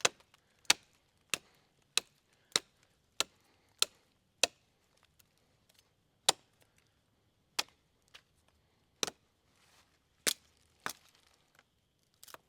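Machete chopping wood with sharp single blows, about one every 0.6 s at first, then slower and uneven in the second half.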